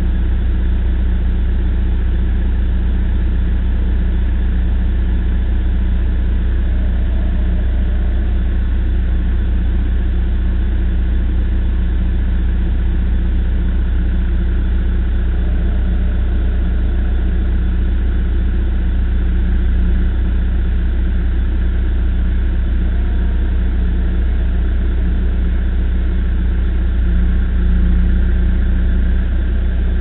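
Backhoe engine running steadily at low speed, a constant low hum with a slight swell near the end.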